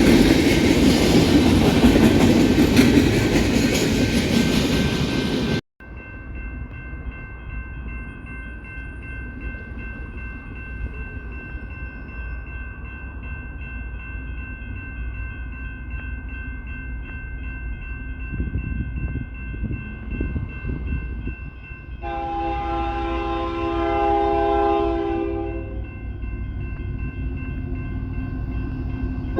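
A train passes with loud rumbling wheel noise for the first several seconds, which cuts off abruptly. Over a quieter background with steady high tones, a locomotive horn then sounds one long blast of about three and a half seconds, roughly three-quarters of the way in.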